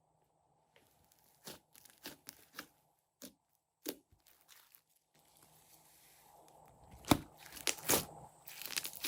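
Crunchy slime being squeezed and kneaded by hand: scattered crackles and pops starting about a second and a half in, growing denser and louder near the end.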